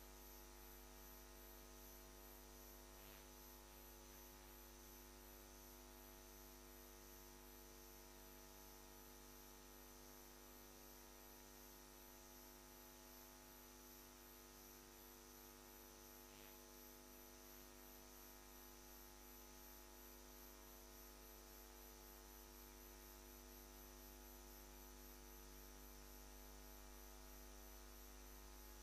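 Near silence: only a faint, steady electrical mains hum on the audio feed, with no speech.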